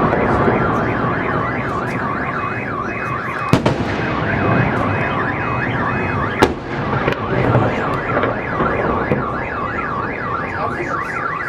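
A car alarm wailing, its tone sweeping quickly up and down and switching pattern partway through, over a continuous crackle of fireworks. Two sharp firework bangs stand out, a few seconds in and again about midway.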